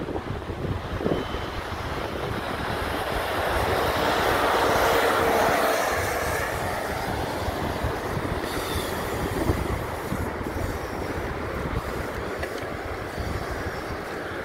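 A vehicle passing by: a rushing noise swells to a peak about five seconds in, then slowly fades, over steady wind buffeting on the microphone.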